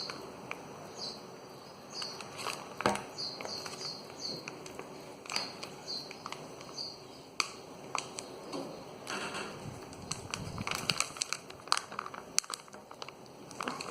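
Plastic slime container being handled and pried at to get it open: scattered sharp clicks and crackles, growing busier in the second half, with short high chirps repeating through the first half.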